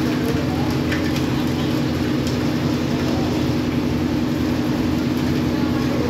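Portable drum concrete mixer running with a steady, even drone, with a few light clicks and knocks about one and two seconds in.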